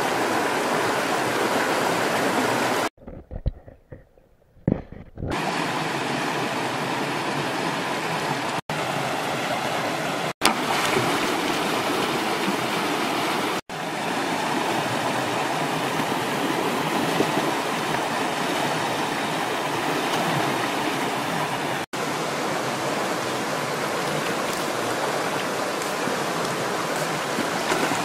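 Shallow rocky river rushing over stones in small rapids: a steady hiss of running water. Three seconds in it drops away for about two seconds, with a couple of soft knocks, then comes back.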